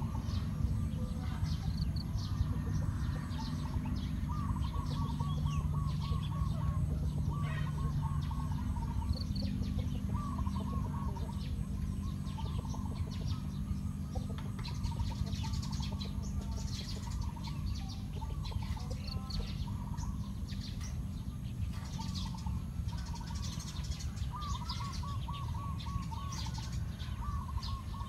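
Birds chirping and calling outdoors, with repeated quick runs of evenly spaced notes and scattered higher chirps, over a steady low rumble.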